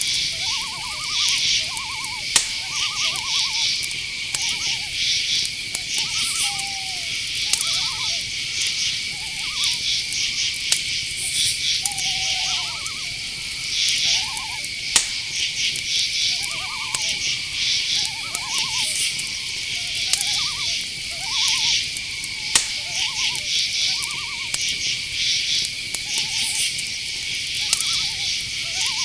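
Night insect chorus: crickets and other insects keep up a steady high drone with pulsing trills above it. Lower down, many short repeated calls overlap, and a few sharp clicks stand out.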